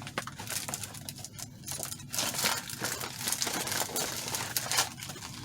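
MRE meal packaging being handled: plastic pouches and cardboard cartons rustling and crinkling in irregular scratchy strokes as the contents are pulled out.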